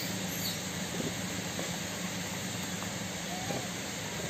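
Steady outdoor background hiss over a low hum, with a couple of faint short chirps about three seconds in.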